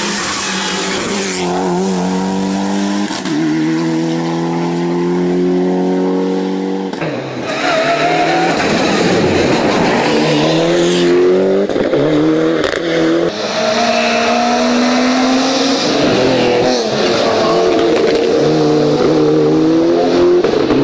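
Rally car engines, among them a Mitsubishi Lancer Evolution's, revving hard up and down through gear changes as the cars drive a closed mountain road. Several short passes are cut together.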